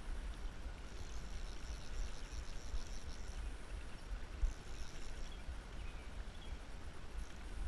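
Steady outdoor ambience: a low rumble with an even hiss over it, and a faint high twittering that comes twice. A small thump about halfway through.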